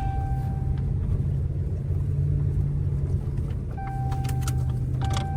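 Dodge pickup's engine pulling steadily in four-wheel drive through deep snow, a continuous low drone. A steady electronic tone sounds on and off over it, once at the start and again near the end, with a few sharp clicks or snaps in the last second and a half.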